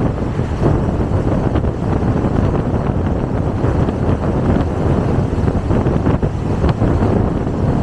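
Steady rush of wind on a car-mounted microphone over the road noise of the car driving at speed.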